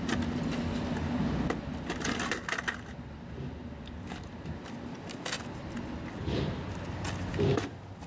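Wooden skateboard deck and wheels knocking and clacking on concrete as the board is handled, a string of separate sharp knocks with a cluster about two seconds in and more near the end.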